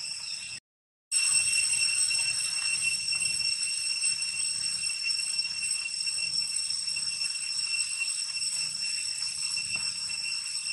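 Steady, high-pitched chorus of insects chirring, held at several pitches at once; it drops out completely for about half a second near the start and resumes slightly louder.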